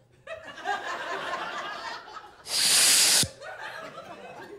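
Comedy-club audience laughing, with one loud hissing breath close to a handheld microphone a little past halfway, lasting under a second.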